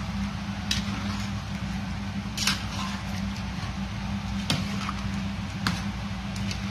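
Metal spatula stirring chicken curry in a steel pot, with a few sharp scrapes and knocks against the pot's side, spaced irregularly about a second or two apart, over a steady low hum.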